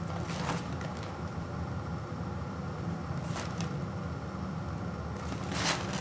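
A sealed cardboard box is handled and turned over in the hands, making a few brief rubbing scrapes, the loudest just before the end. A steady low hum sits underneath.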